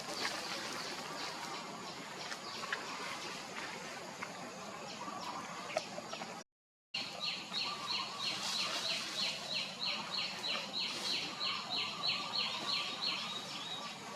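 Outdoor ambience with a few faint ticks. After a brief dropout in the sound, a bird calls a rapid run of high repeated chirps, about four or five a second, for several seconds.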